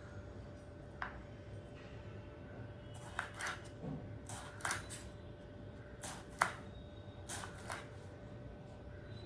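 Irregular light clicks, taps and short rustling swishes of things being handled by hand, with the busiest stretch in the middle and a sharper click a little past six seconds, over a faint steady hum.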